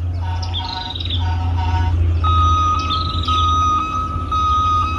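Toy crane truck's electronic sound module playing its effects through a small speaker: a run of quick paired beeps, then, about two seconds in, one long steady high tone, over a low steady hum.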